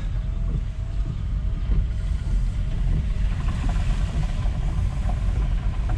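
Steady low rumble of a car driving slowly through shallow floodwater, heard from inside the cabin, with an even hiss of the tyres in the water.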